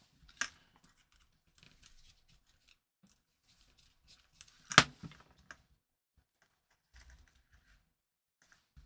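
Light clicks and rustles of insulated wires and a small plastic receiver board being handled as wires are fitted into its screw terminals, with one sharp click just before five seconds in.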